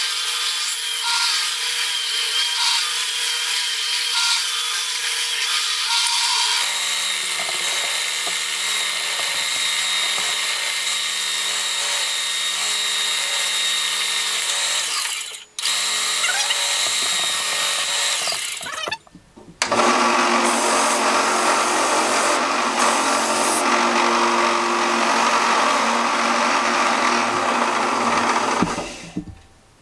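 Benchtop belt sanders running while an abrasive cleaning stick is pressed against the moving sanding belts, rubbing the clogged wood dust out of the grit. The sound breaks off briefly twice and is different after the second break, then fades near the end.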